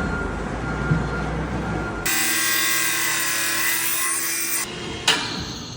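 A power tool running. A low rumbling stretch gives way, about two seconds in, to a louder, high-pitched whine with a hiss that cuts off abruptly, followed by a brief sharp burst near the end.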